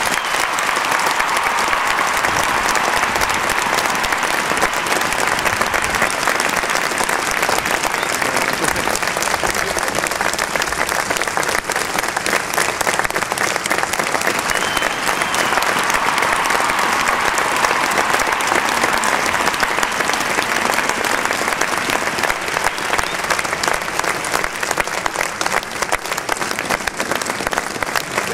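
Large crowd of about a thousand people applauding steadily and at length, with voices mixed into the clapping.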